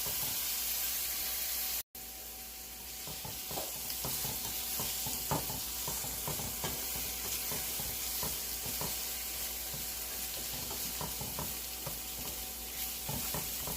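Stir-fry of cabbage, carrot and garlic sizzling in vegetable oil in a hot pan, with frequent light scrapes and clicks as it is stirred. The sound cuts out for a moment about two seconds in.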